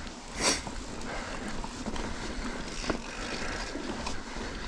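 Mountain-bike riding noise: wind buffeting the helmet camera's microphone and tyres rolling over rock and dirt, with a short loud rush about half a second in and a sharp click near the end.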